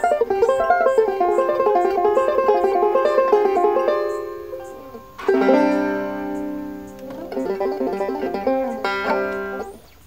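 Banjo improvisation: fast fingerpicked runs for about four seconds that trail off, then a chord struck about five seconds in and left to ring. A few more picked notes and a final chord follow, and the playing stops just before the end.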